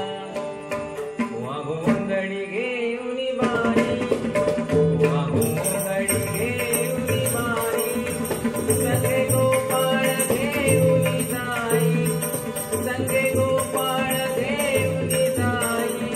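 A gaulan, a Marathi devotional folk song, sung to a steady hand-drum beat with sustained accompanying tones. The music grows fuller and louder about three seconds in.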